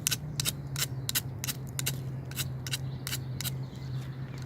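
Quick repeated scraping strokes, about two to three a second, typical of a knife blade being scraped along wood, over a steady low hum.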